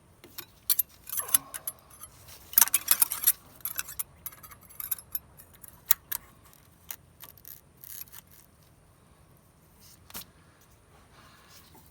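Light metallic clinks and jingling of hand tools, a feeler gauge set and a wrench, handled at a tractor engine's rocker arms while setting valve clearance. A dense run of clinks comes in the first few seconds, then scattered ticks.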